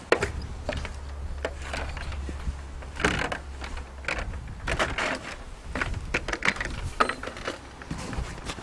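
A stepladder being moved and set in place: irregular knocks and clatter, with a low rumble through the first half.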